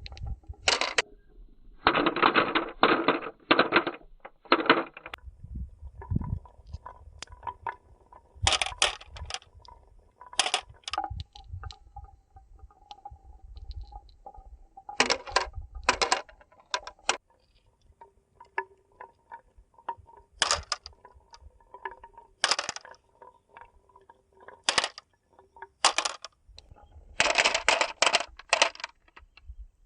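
Marbles rolling down a toy marble run, with a faint steady hum from the rolling and repeated sharp clacks as they strike the track and each other. Rapid rattling clusters of clicks come as several marbles drop together, heaviest a couple of seconds in and again near the end.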